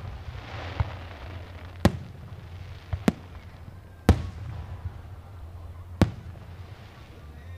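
Aerial fireworks shells bursting overhead: about six sharp bangs spread unevenly, the loudest about four seconds in. There is a hissing crackle in the first second or so.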